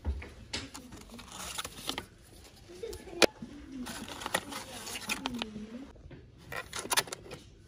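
Rustles and clicks of plastic baby-food squeeze pouches being handled on a shop shelf, with one sharp click about three seconds in. Under them, a soft voice coos, rising and falling.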